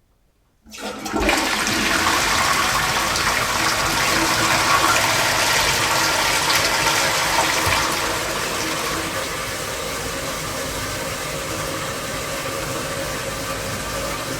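Household toilet being flushed: the water starts with a sudden rush about half a second in, runs loud, then eases a little about eight seconds in and carries on steadily.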